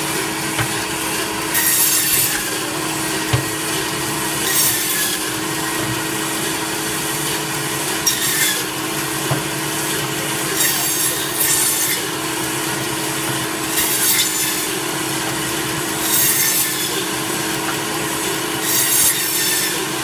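Electric meat band saw running with a steady motor hum, its blade cutting one-inch slices through a beef backbone. Each cut through the bone is a short, harsher burst of sawing, about every two to three seconds.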